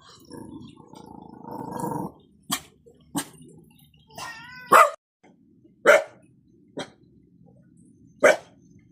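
An animal calling in short sharp barks, about six of them, the three loudest about halfway through and near the end, one led in by a brief whine.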